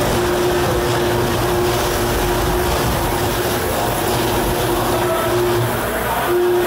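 Electric drive motors of a small tracked robot whining over a steady machine hum and hall din; the whine drops out and comes back several times as the robot stops and starts.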